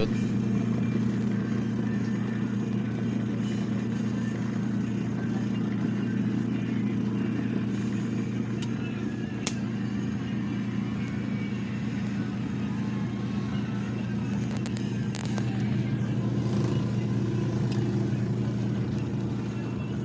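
Small electric motor of a mini twin-tub washing machine's spin dryer running with a steady low hum, the plastic basket spinning with its lid open.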